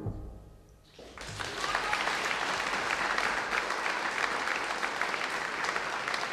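The final sung note and piano end, and about a second later an audience starts applauding, a steady, dense clapping that carries on.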